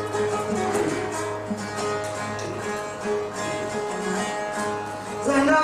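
Long-necked lute played solo: a plucked melody with fast repeated strokes over a low held note that drops out partway through. Right at the end a man's voice comes in singing, louder than the lute.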